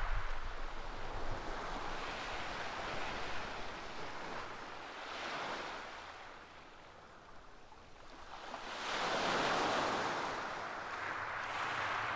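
Surf breaking and washing on a shingle beach, a steady hiss that swells and fades with each wave: three swells, with a near-quiet lull in the middle.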